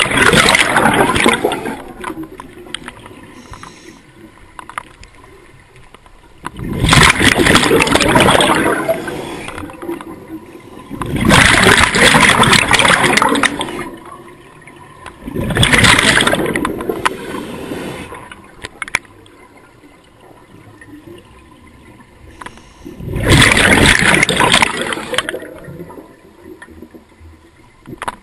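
Scuba diver's regulator exhausting: five loud rushes of exhaled bubbles a few seconds apart, each lasting about two seconds, with a quiet hiss between breaths.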